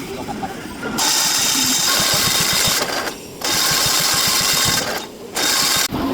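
A machine running in three bursts: about two seconds, then a second and a half, then half a second, with a fast rattle under a loud hiss.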